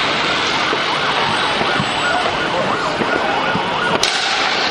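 Fireworks going off across the city: a dense steady crackle with many overlapping whistles gliding up and down, and a sharp bang about four seconds in.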